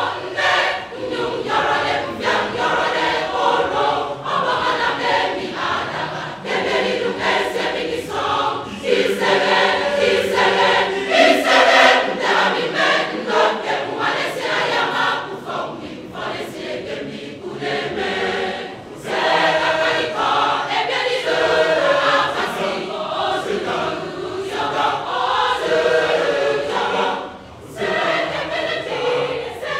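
Mass choir singing a choral piece, with a brief break in the singing near the end.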